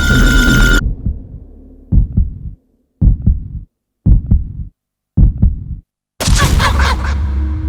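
Heartbeat sound effect: four deep double thumps about a second apart. A loud, dense sound cuts off just before them. About six seconds in, a loud new hit with a bright hiss begins.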